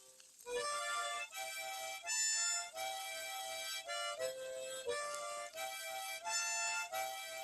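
Background music: a reedy, harmonica-like melody of short held notes over a faint low beat, starting about half a second in.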